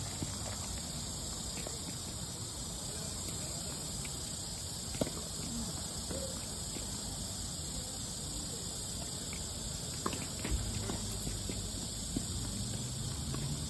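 Steady high-pitched chorus of crickets on a summer night, with a few sharp taps, the clearest about five seconds in and two more near the end.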